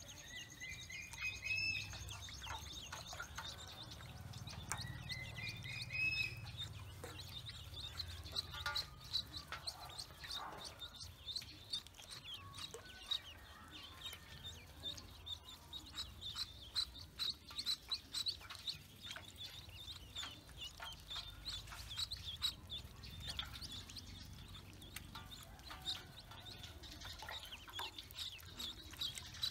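A brood of ducklings peeping continuously, many short high peeps overlapping, with a couple of longer rising calls in the first several seconds.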